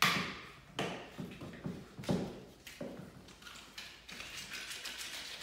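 Plastic compound tubs and a putty knife being handled on a wooden floor: a sharp knock at the start, then a string of lighter knocks and taps over the next three seconds, then soft rustling near the end.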